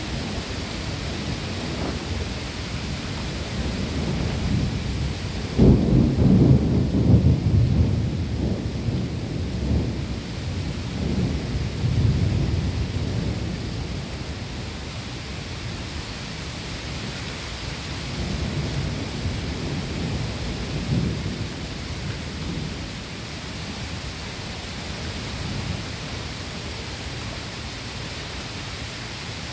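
Thunder from a passing thunderstorm: a sudden low rumble about six seconds in that rolls on for several seconds and dies away, then a fainter rumble later, over the steady hiss of rain.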